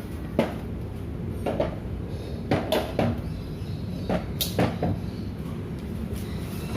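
Irregular knocks and clacks of hard parts being handled and set down, about nine in all, over a steady low rumble.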